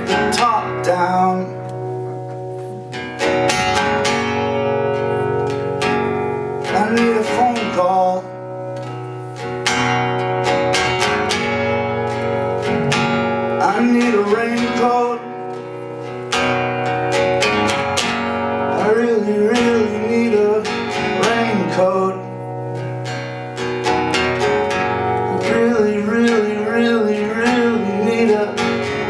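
Acoustic guitar played with steady strokes, with a man's voice singing long wavering notes over it in several stretches.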